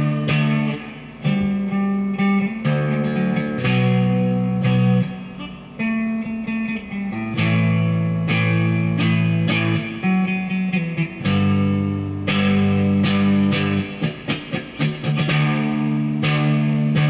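Electric guitar played solo: held chords and notes that change every second or two, with a run of short, choppy notes near the end.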